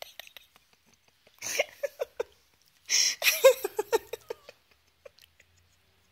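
Three-week-old chihuahua puppies squeaking and yipping in quick high little squeals, in two short bursts about a second and a half and three seconds in, with some rustling.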